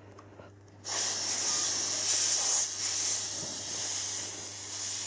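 Air hissing out of a scooter tire's valve as the tire is deflated, starting about a second in and wavering in strength.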